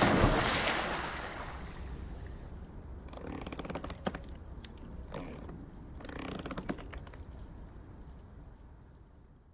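Radio-drama sound effects for the hanging: a sudden loud crash that fades over a couple of seconds, then two spells of creaking and clicking about three and six seconds in, dying away near the end.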